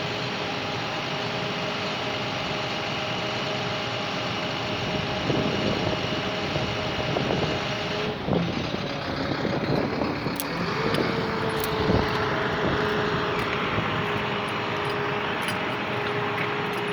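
A vehicle engine running steadily with a constant whine, joined partway through by scattered knocks and light clicks.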